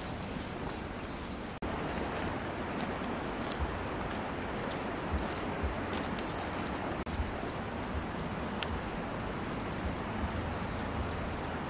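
Insects chirping: short trilled chirps repeating every second or so over a steady hiss of outdoor background noise.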